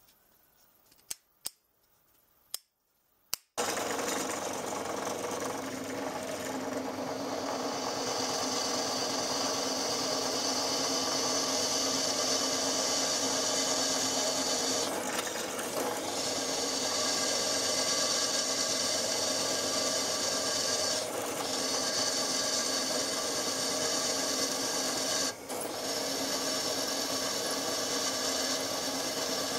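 A few light clicks as locking pliers are handled. About three and a half seconds in, a drill press starts cutting into a metal part: a steady machine run with a high whine and metal chips being cut away. It dips briefly a few times.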